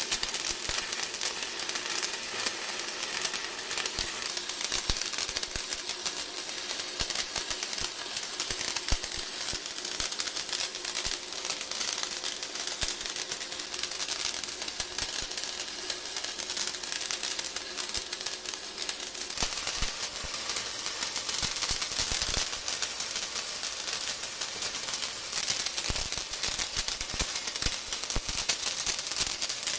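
Stick (MMA) arc welding: the electrode's arc crackles and sizzles steadily as the rod burns off and spatters sparks.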